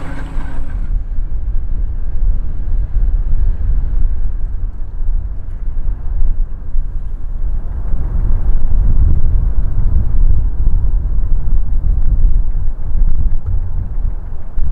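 Wind buffeting the microphone: a heavy, uneven low rumble that swells and fades, loudest midway, with only a faint steady hum above it.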